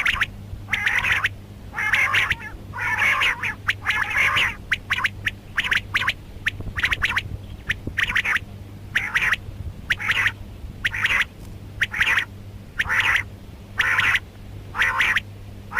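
Rain quail calling: harsh, squawky notes repeated about once a second over a steady low hum.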